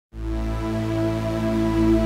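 Ambient background music of steady held notes, beginning right at the start.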